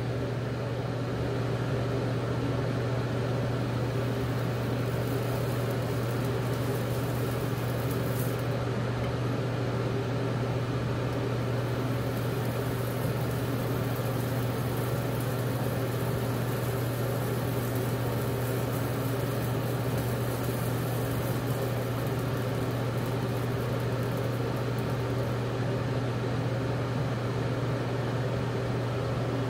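Steady low mechanical hum of a ventilation fan running at an even pitch, with no change in level.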